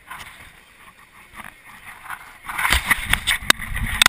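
Handling noise of a body-worn action camera: low rumbling and rubbing with sharp knocks as the camera is moved about, starting about two and a half seconds in.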